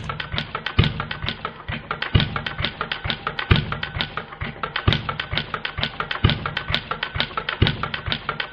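Maier single-cylinder butane model gas engine running, heard slowed down: a deep thump from each firing about every one and a half seconds, with rapid mechanical ticking in between.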